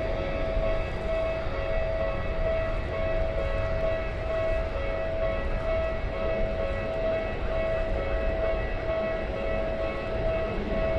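Level-crossing warning bell ringing over and over at an even pace, over a steady low rumble.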